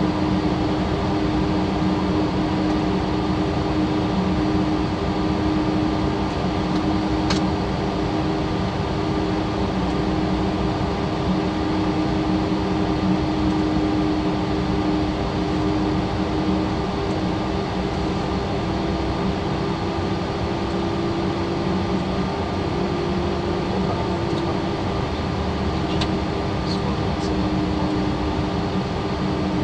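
Steady cockpit noise of a Cessna Citation Latitude business jet in flight: airflow rush and an even engine and systems hum, with a faint click about seven seconds in and a few more near the end.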